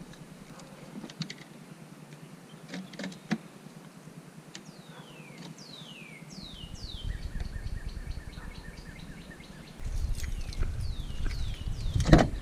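A bird calling a series of whistled notes that each fall in pitch, in two groups, under a low rumble. There are a few clicks and knocks, the loudest one near the end.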